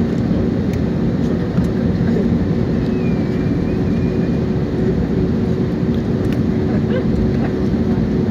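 Steady drone of an airliner heard from inside the passenger cabin: a dense low rumble of engine and airflow noise with a couple of steady hums, unchanging throughout.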